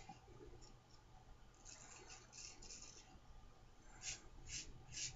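Faint scraping strokes of a GEM Pushbutton single-edge safety razor cutting lathered stubble: a few strokes about two seconds in, then three short strokes about half a second apart near the end.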